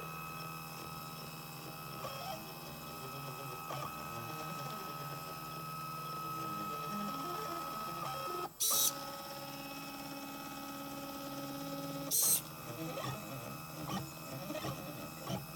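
Stepper motors of a small homemade polar CNC drawing machine running: a steady mechanical whine made of several tones, with shifting patterns and light ticks as it moves. It is broken twice by a short, loud, high-pitched burst, the first about halfway in and the second about 3.5 seconds later.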